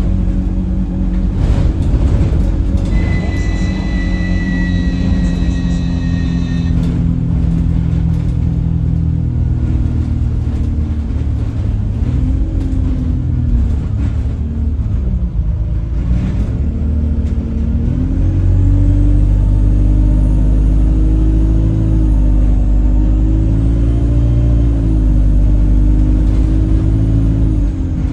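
Alexander Dennis Enviro 200 bus driving, heard on board: a droning, horn-like tone rises and falls with road speed over a heavy low rumble. About three seconds in, a thin high whistle sounds for a few seconds. The uploader puts the strange whistling and horn-like noise down to the gearbox, and the bus feels sluggish.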